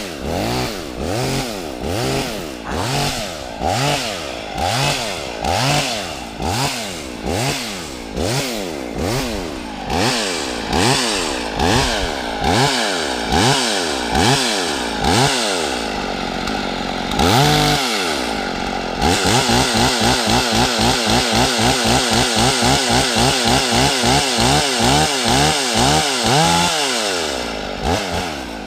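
Husqvarna 55 two-stroke chainsaw being revved up and down over and over, about once a second. Later it is held at high revs for several seconds with a regular pulsing, then drops back to idle near the end.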